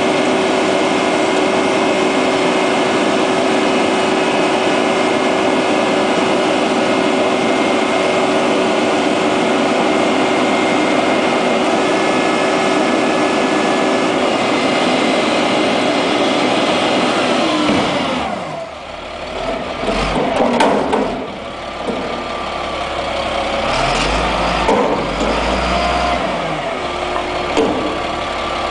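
Front-loader garbage truck's diesel engine held at high revs with a steady hydraulic whine while its lift arms hold a dumping bin over the cab. About 18 seconds in the revs fall away, followed by several clanks and bangs as the arms lower the bin.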